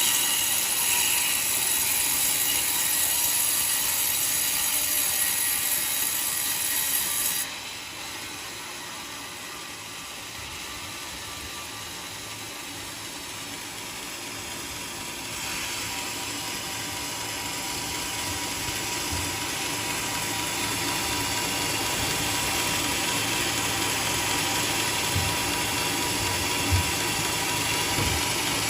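Sawmill running and sawing through coconut timber. The high-pitched cutting noise drops away suddenly about seven seconds in, leaving a lower machine hum, then builds up again from about fifteen seconds.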